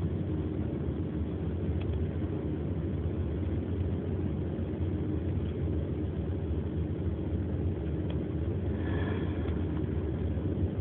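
Steady low rumble of a car's engine and road noise heard inside the car's cabin, with a short higher-pitched sound about nine seconds in.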